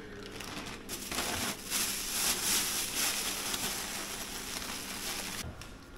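Thin plastic bag crinkling and rustling as it is handled and its contents taken out, starting about a second in and cutting off abruptly near the end.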